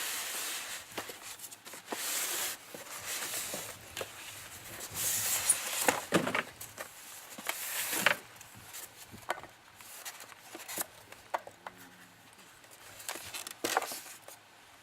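Styrofoam and plastic packaging rustling and scraping in repeated bursts while an airsoft rifle is unpacked, with scattered clicks and knocks.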